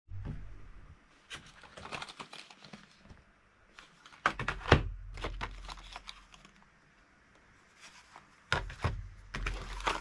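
Stiff clear plastic blister packs being picked up and handled, clicking and crackling in three bursts, with the sharpest knock just under five seconds in.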